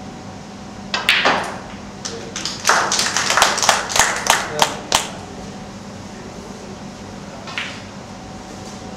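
Short round of irregular hand clapping from a few spectators, thickest between about two and a half and five seconds in, after a short sharp noise about a second in.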